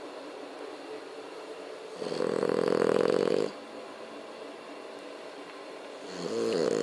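French bulldog snoring loudly. One long snore comes about two seconds in and lasts about a second and a half, and the next starts near the end, with quieter breathing between them.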